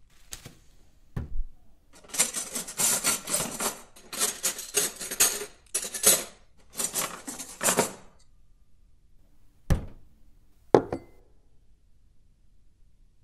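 A thin plastic bag crinkling and rustling in four spells as a raw steak in it is handled, then two sharp knocks as two spice jars are set down on the counter.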